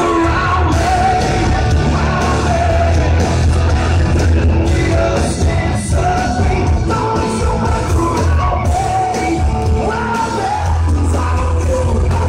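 Rock band playing live and loud: electric guitars, bass and drums with a male singer singing and yelling into a microphone, heard from the crowd.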